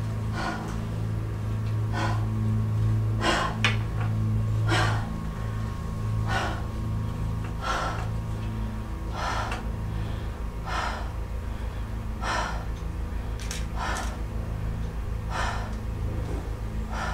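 A woman breathing hard in a steady rhythm, one sharp breath about every second and a half, over a steady low hum.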